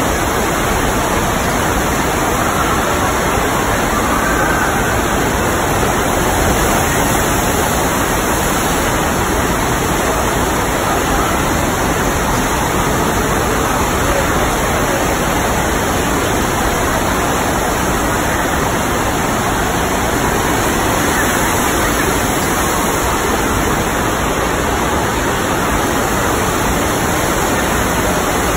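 Standing-wave surf simulator running: a steady rush of pumped water sheeting up the padded wave slope.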